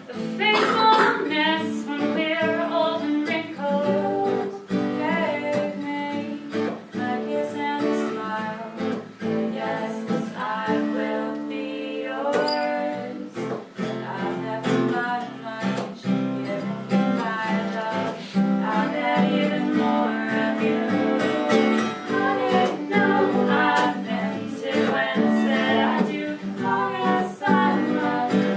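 Two women singing a folk-pop song together over a strummed acoustic guitar.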